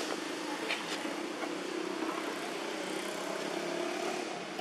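A motor engine running with a steady hum, holding a fairly even pitch throughout.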